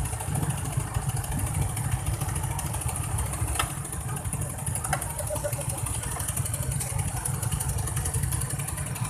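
Steady low rumble of a moving road vehicle's engine and road noise, with a faint click about three and a half seconds in.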